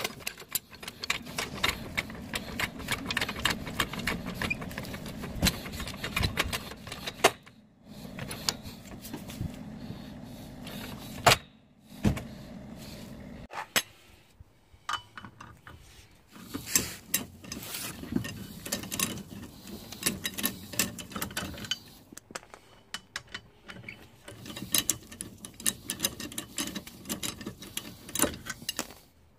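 Trolley jack being pumped by its long handle, with repeated metallic clicks and clanks, then sparser metal clicks and knocks of a wheel brace being fitted and worked on the wheel bolts.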